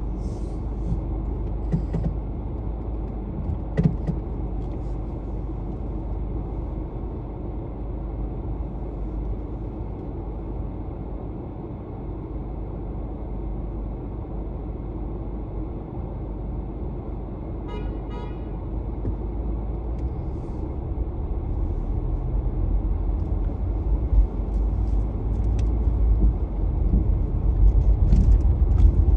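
A car driving in city traffic: a steady low road and engine rumble that drops in the middle and builds again toward the end. A short horn toot of about a second sounds roughly two-thirds of the way through.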